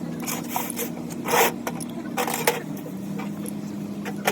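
Workshop handling sounds: a few short scrapes and metal clinks from tools being worked, over a steady low machine hum.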